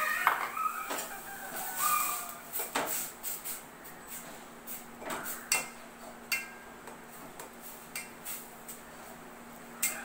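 A metal spoon stirring thick rice-flour dough in a steel pot, clinking and scraping against the pot in irregular clicks. A bird calls near the start.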